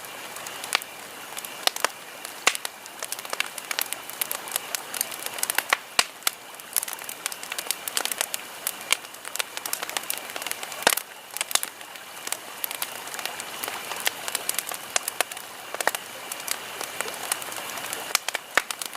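Campfire burning with irregular sharp crackles and pops of wood over a steady hiss of flame.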